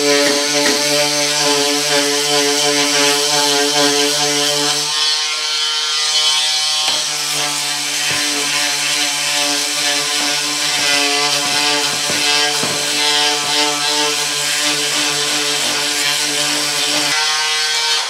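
Ryobi 18V cordless oscillating multi-tool running with a triangular sanding pad pressed against painted trim: a steady buzzing hum with a sanding rasp. The motor stops about a second before the end.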